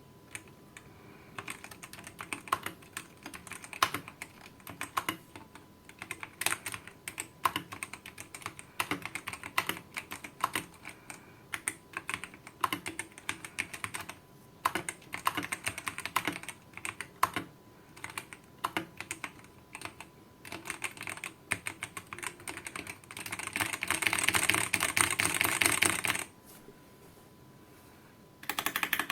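Typing on a VortexSeries GT-8 mechanical keyboard with Outemu Brown tactile switches: irregular key clacks, picking up into a dense, fast run of keystrokes about three-quarters of the way through, then a short pause before typing resumes near the end.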